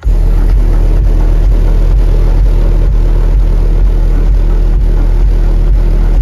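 Four Carbon Audio Misil subwoofers in ported boxes tuned to 39 Hz playing bass-heavy music at very high volume. The deep bass comes in suddenly and stays steady, with a regular beat.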